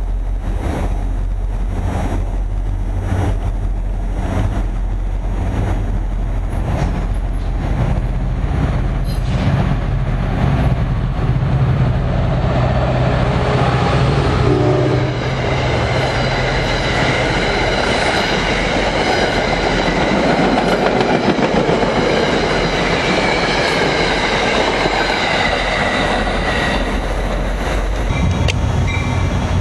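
New Jersey Transit diesel commuter train passing close at speed. For the first half the locomotive's engine drone runs under regular clicks of wheels over rail joints. About halfway the drone drops away, leaving the loud rush of the passing coaches with a high wheel squeal. A low drone comes back near the end.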